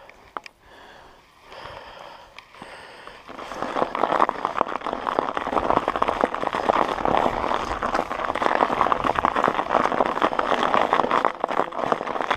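Quiet at first, then from about three seconds in a loud, dense crunching and crackling of mountain bike tyres rolling over snow.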